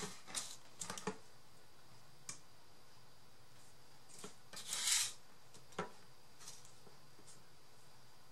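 Quiet crafting handling sounds: scattered light clicks and taps, with one brief louder rustle or snip a little before the fifth second, as pieces are measured and cut.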